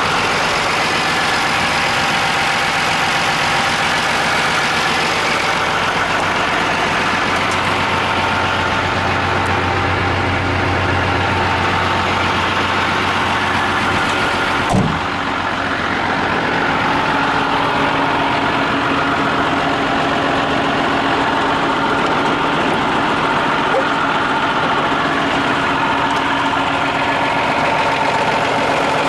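Renault S170 fire truck's diesel engine idling steadily, heard close to the chassis. A single short knock sounds about fifteen seconds in.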